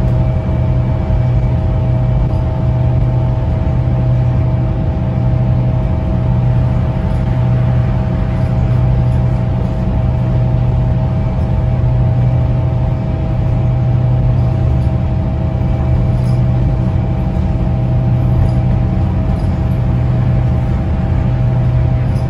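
Scania K270UB bus's diesel engine and road noise heard from inside the saloon while cruising at speed: a steady low drone with a fainter constant whine above it and an even rush of tyre and road noise.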